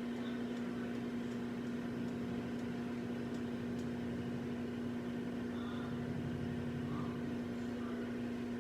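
A steady mechanical hum with one strong low tone, from an appliance running in the kitchen.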